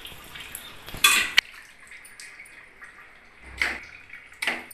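Raw, wet mutton pieces being scooped by hand from a steel bowl and dropped into an aluminium pressure cooker: three short wet splats, the loudest about a second in and two more near the end.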